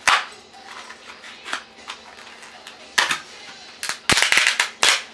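A styrofoam natto pack and its plastic film crackling and snapping as it is peeled and opened by hand: a sharp crackle at the start, another about three seconds in, and a burst of crinkling near the end as the lid is folded back.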